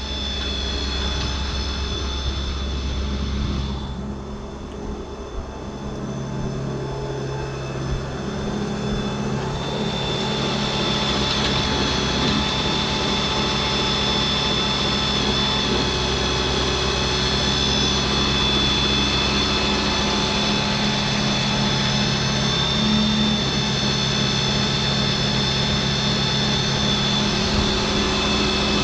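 Engine-driven machinery running steadily, a drone with a thin high whine. The note shifts about 4 seconds in, and the sound grows louder from about 10 seconds on.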